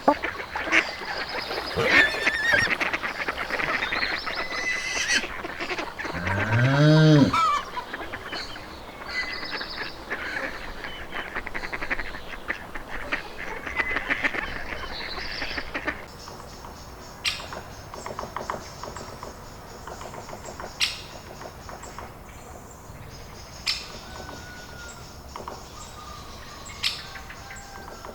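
Farmyard geese and ducks honking and quacking together, with one low drawn-out call that rises and falls in pitch about six seconds in. About sixteen seconds in the calling gives way to a quieter stretch with a few sharp clicks and faint high chirps.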